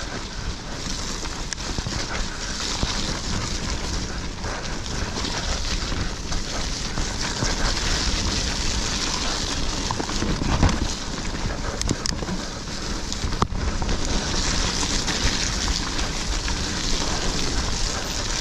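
YT mountain bike ridden fast down a loose dirt woodland trail: a continuous rush of wind on the camera microphone mixed with tyres crunching over dirt and the bike rattling. A few sharp knocks from the bike come around the middle.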